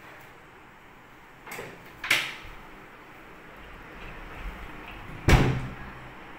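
Office door with a lever handle being worked: a sharp click about two seconds in, then a louder knock with a low thump a little after five seconds.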